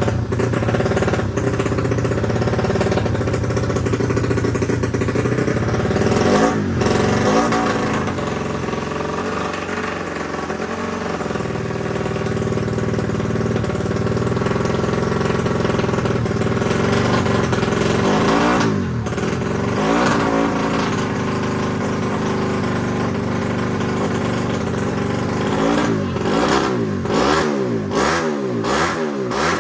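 Racing motorcycle engine running at a fast idle and being revved, with a run of quick throttle blips near the end.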